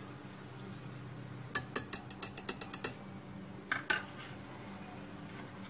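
Wire whisk clinking against a glass mixing bowl as semolina batter is lightly mixed, a quick run of about eight ringing clinks, then two more about four seconds in.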